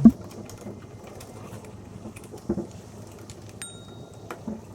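Scattered knocks and light clicks of a new water pump and its parts being handled, with a sharp knock at the very start and a brief faint high squeak about three and a half seconds in.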